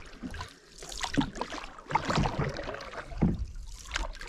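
Canoe paddles stroking through calm lake water: a splashing swish about every second.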